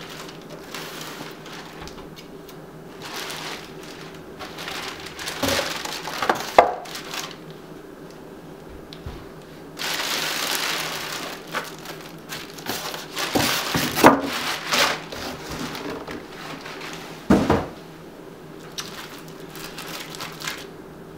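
Plastic bag crinkling and rustling and polystyrene foam packing rubbing as they are pulled off a computer case, with several sharp knocks and a low thump as the case and packing are handled and set down on the table.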